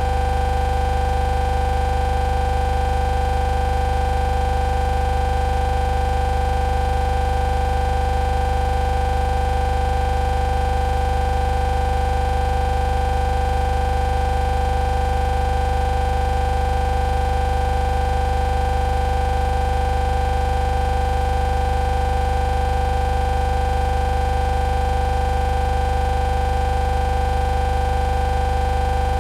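Electronic glitch sound effect: a steady synthetic buzz, with a low drone beneath two held tones, continuing unchanged without breaks.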